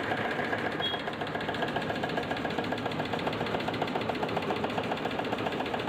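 Usha Janome 450E computerised embroidery machine stitching, its needle bar going in a rapid, even rhythm over a steady motor hum.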